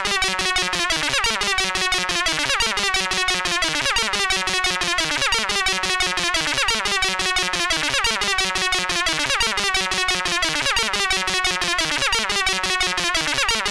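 Synthesized electronic music: a loud, rapidly pulsing tone whose pitches fall in a repeating pattern about every second and a quarter. It cuts in and out abruptly.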